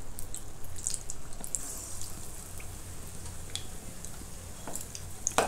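Chickpea-flour-battered potato and pigeon-pea vada deep-frying in hot oil in a wok: a steady sizzle with scattered crackles and pops, and one sharper click just before the end.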